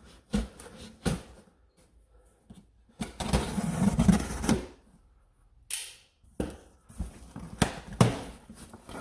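A cardboard shipping box being handled and opened: scattered knocks and clicks, a rough scraping, rustling stretch of cardboard about three seconds in lasting over a second, then a run of separate taps and thumps.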